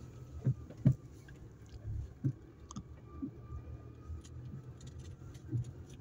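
Low, steady rumble of a car driving slowly, heard from inside the cabin, with a few soft knocks scattered through it.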